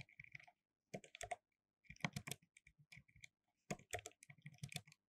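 Faint typing on a computer keyboard, in four short bursts of quick keystrokes with pauses between them.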